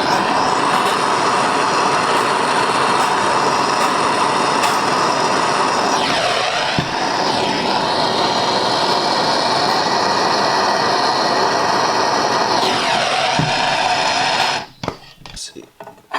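Soldering torch flame burning with a steady rushing hiss while heating a copper pipe joint for sweating. It cuts off suddenly about a second and a half before the end, followed by a few light knocks.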